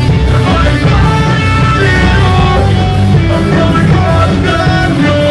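Live rock band playing loud, with electric guitar and heavy bass over a steady beat.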